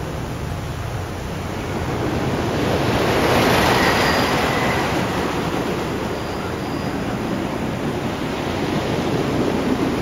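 Wooden roller coaster train running along its track, a rumbling roar that swells to its loudest about three to four seconds in and builds again near the end.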